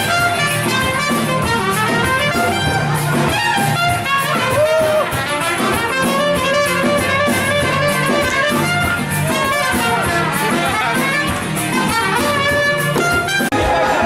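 Dance music with brass and a steady beat, with a brief drop about a second before the end.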